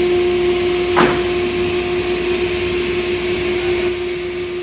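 Woodworking machinery at a lumber-cutting saw station running with a steady hum and hiss, with a single short knock about a second in.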